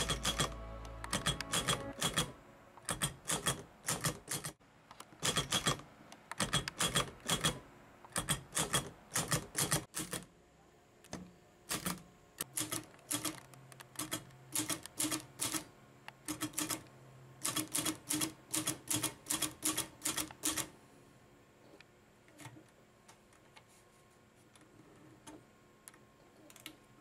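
Typing on a manual portable typewriter: quick runs of sharp keystroke clicks with short pauses between them. The typing stops about 20 seconds in, leaving only a few faint ticks.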